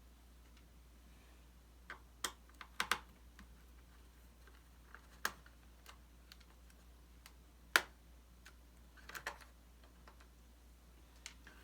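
Scattered, irregular sharp clicks and taps of a screwdriver, small screws and the plastic bottom cover of a Lenovo G50 laptop being worked on to open it up, about ten in all, the loudest a little past the middle.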